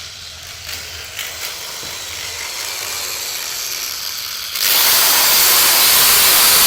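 Staged power-tool sound effect: faint clicking and rattling as the tool is handled, then about four and a half seconds in a power tool starts suddenly with a loud, steady, hissing whir.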